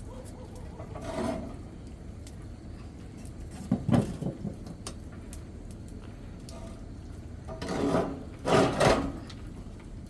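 A few short knocks and scrapes, like things of wood being handled: a brief scrape about a second in, a quick run of knocks around four seconds, and two louder scrapes near the end.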